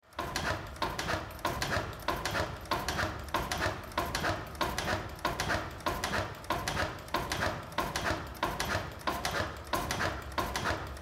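Vintage Crossley stationary gas engine running steadily, with a regular clatter of its valve gear and firing, the strongest knock coming about every two-thirds of a second over a low hum.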